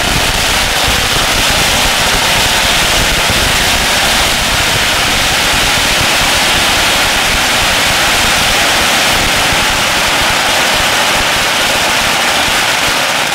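A big gasoline-soaked roll of firecrackers going off all at once, the bangs so fast that they merge into one continuous, very loud crackling din that stops near the end.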